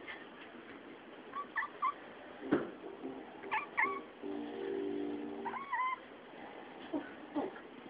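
Domestic cat giving short meows in three brief groups, with a few soft knocks in between.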